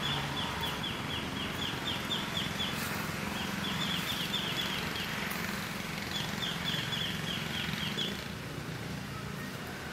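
A bird calling in runs of short, quickly falling chirps, about five a second, three runs with short gaps between them, over a steady outdoor hiss.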